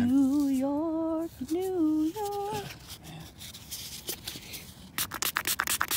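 A voice letting out a drawn-out, wavering 'ooh' over three held notes, in delight at the find. About five seconds in, quick repeated scratching strokes begin as the dug-up metal badge is rubbed clean.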